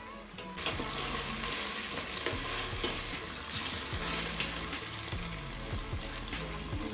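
Tomato paste and sliced onions sizzling as they stir-fry in a stainless steel pot, with a slotted metal spoon scraping and clicking against the pot as it is stirred. The sizzle grows louder about half a second in.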